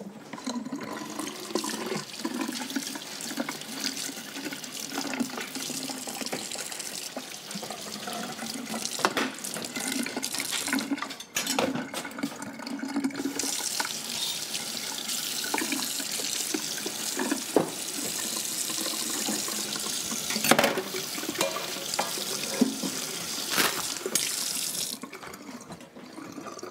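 Kitchen tap running into a sink, with now and then a sharp clink or knock of dishes and pans.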